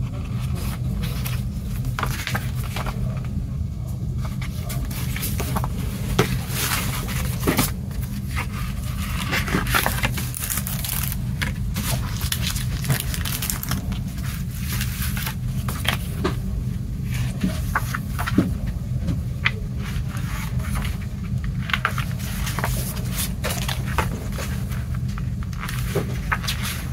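Handling of a CD's paper booklet and plastic sleeve: pages turned and flipped and plastic crinkling, heard as scattered rustles and clicks over a steady low hum.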